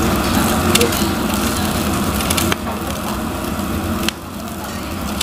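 Raw beef ribs sizzling on a tabletop grill: a steady hiss with a few sharp crackles, dropping suddenly in level twice, about two and a half and four seconds in.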